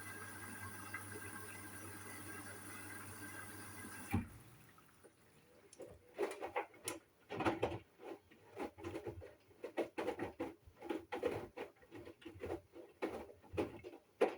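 Hoover washing machine at the start of a wash cycle: water runs in through the inlet valve with a steady hum, then stops with a click about four seconds in. The drum then starts tumbling, with the wet load sloshing and thudding irregularly two or three times a second.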